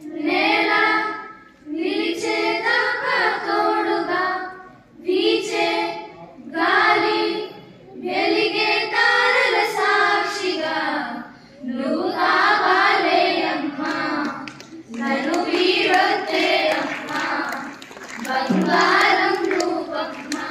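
A group of girls singing together into microphones, in phrases of a second or two with short breaks between them.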